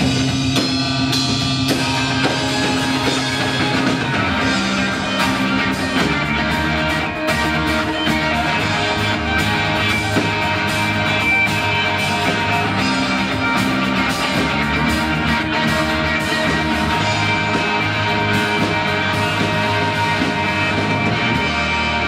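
A rock band playing an instrumental passage: drum kit with steady cymbal and drum hits under sustained guitar chords.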